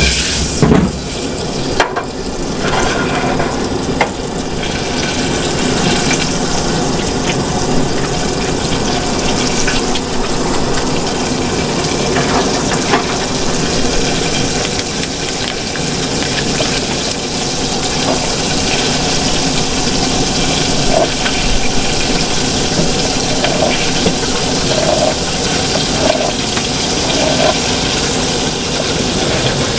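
Water running steadily from a 5-gallon water tank's faucet and splashing while dishes are washed, with a few light knocks.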